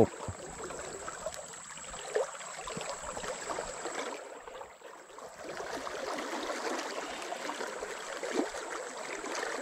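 Fast-flowing river water rushing steadily, briefly quieter about four to five seconds in.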